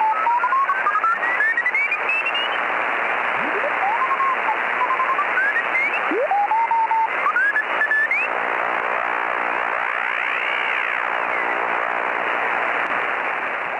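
Shortwave radio static through a narrow, telephone-like passband, with whistling heterodyne tones that glide upward several times, as when a receiver is tuned across the band. Near the ten-second mark a group of tones rises and then falls together.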